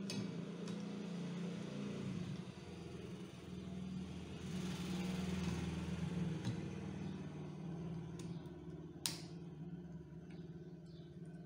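A replacement windscreen wiper blade being handled and fitted onto the wiper arm, with a single sharp click about nine seconds in as the blade snaps into place, over a steady low hum.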